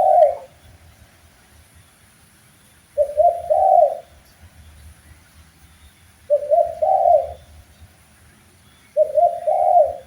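Spotted dove cooing: a short phrase of three or four low coos, repeated about every three seconds.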